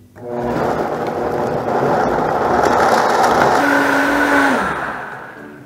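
High-powered countertop blender running hard, pulverizing a thick cashew curry sauce with whole lemon and peel into a smooth cream. It starts abruptly, and near the end the motor's pitch drops and the sound fades as it winds down.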